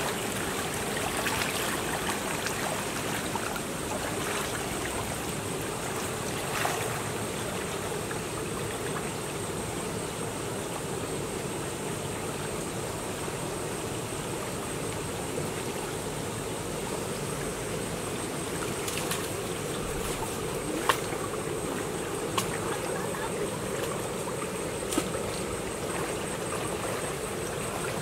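Shallow stream water flowing and sloshing as people wade through it, with a few short, sharp knocks or splashes. A thin, steady high-pitched tone runs underneath.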